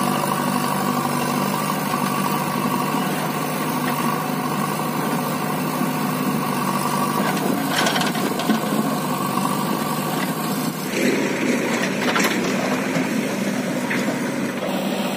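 Diesel engine of a JCB backhoe loader running steadily while it loads soil into a tractor trolley, with a short thud of a bucketful dropping into the trolley about eight seconds in. The engine note turns rougher and louder about three seconds later.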